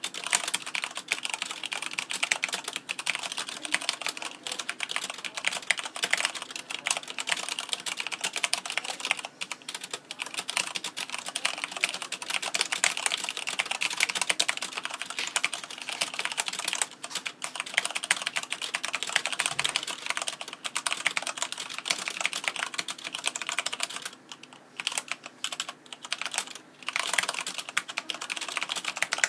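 Fast, continuous typing on a Corsair K70 RGB mechanical keyboard with Cherry MX Brown switches: a dense patter of key clicks, with a few brief pauses between bursts, the longest a little over halfway through and near the end.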